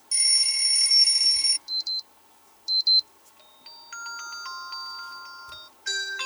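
Xiaomi POCO M4 Pro default alarm tones played in turn: a loud buzzing electronic tone for about a second and a half, then short double beeps twice, about a second apart, then a chiming melody of ringing notes that climb in pitch. Another tone starts just before the end.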